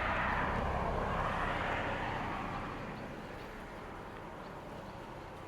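Honeybees buzzing at an open hive: a steady hum that grows fainter after about two and a half seconds.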